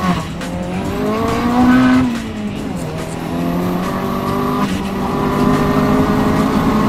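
Turbocharged 1.8-litre four-cylinder from an Audi S3, swapped into a VW Lupo GTI with a 3-inch decat exhaust, accelerating hard, heard from inside the cabin. The engine note climbs, drops at a gear change about two seconds in, climbs again and drops at another shift near five seconds, then holds steady.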